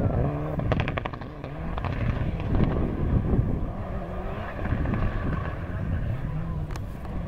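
Rally car engine revving up and down through gear changes as the car slides along a gravel stage in the distance, with a short run of sharp cracks about a second in.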